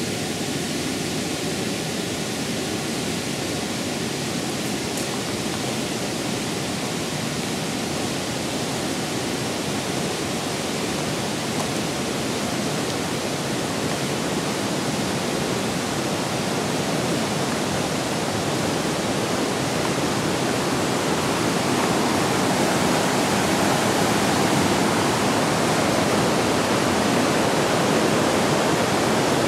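Mountain river rushing steadily over rocks in a gorge, a continuous hiss of water that grows a little louder about two-thirds of the way through.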